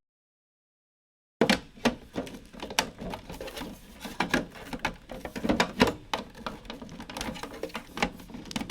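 Total dropout for about a second and a half, then a dense, irregular run of sharp clicks and knocks from hard plastic model-kit parts being handled and pressed together.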